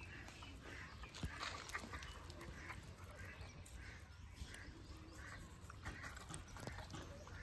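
Soft wet rubbing and pressing of hands working turmeric into a whole fish on a banana leaf, with a few sharp leaf crinkles. Short animal calls repeat in the background.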